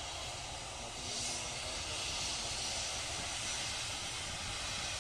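Jet engines of a twin-engine airliner on its take-off roll, a steady hissing rush that grows a little louder about a second in.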